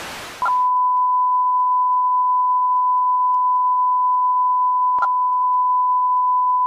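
Television static hiss that cuts off about half a second in, giving way to a loud, steady single-pitch beep tone, the stand-by test tone that goes with a technical-difficulties card. A brief click sounds about five seconds in.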